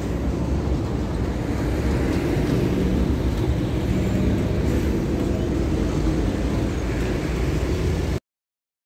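A vehicle's engine running, with steady road noise, deep and even. The sound cuts off abruptly into complete silence about eight seconds in.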